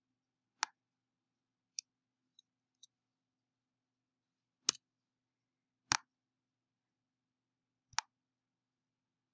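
Scattered single clicks of a computer mouse and keyboard keys, about seven in all, with the two loudest a little past the middle.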